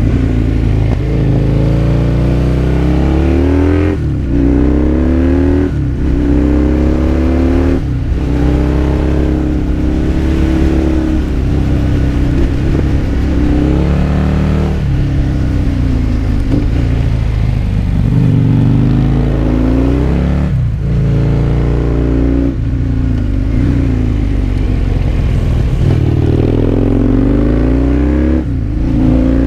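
Husqvarna Nuda 900 parallel-twin motorcycle engine heard onboard, its pitch rising under acceleration and falling again over and over, with brief drops in the sound about eight times as the throttle is rolled off.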